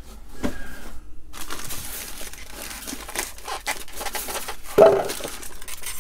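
Plastic bag wrapping crinkling and polystyrene foam packing blocks rubbing as they are pulled off by hand, with one louder, short rub about five seconds in.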